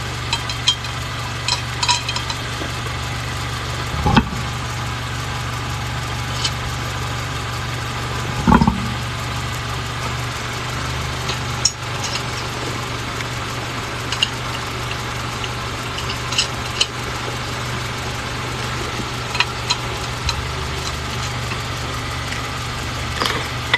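A vehicle engine idling steadily, with scattered light metallic clinks and two heavier thumps, about four and eight seconds in, from a spare tire being fitted onto the wheel hub.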